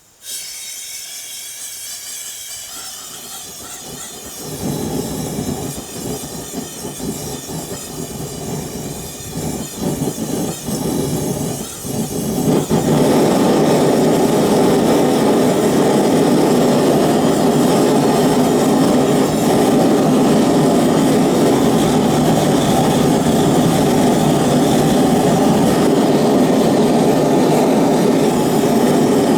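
Single-burner gas forge firing: gas hisses from the start, the burner's low rumble joins about four seconds in, and about twelve seconds in it grows much louder and then runs steadily. This is a test firing to cure the freshly applied Satanite lining.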